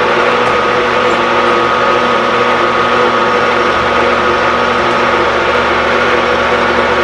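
Metal lathe running at a steady speed, a steady whine over a noisy hum, with the cutting tool turning down the lip of the spinning workpiece.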